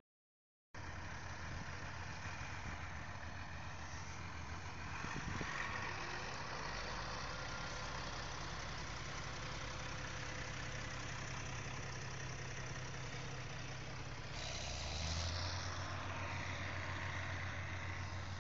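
Heavy vehicle engine running steadily at low revs, starting after a moment of silence and briefly revving up about fifteen seconds in.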